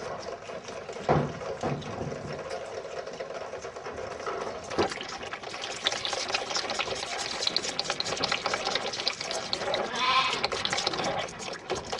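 Calves calling, with one clear bawl near the end, over a steady clatter and hiss of animals moving in a barn.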